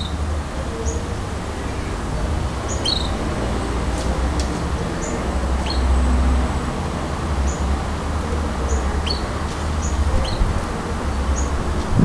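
Short, high chirps and call notes from a caged Mexican jilguero (brown-backed solitaire), scattered irregularly about a second or so apart, over a steady low rumble.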